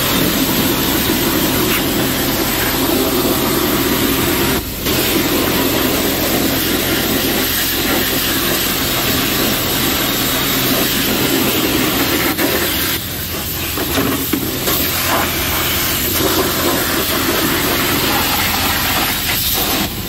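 A car-wash pressure-washer wand sprays a high-pressure jet of water onto chainsaw crankcase parts in a plastic crate, making a loud, steady hiss and spatter. The spray dips briefly about five seconds in.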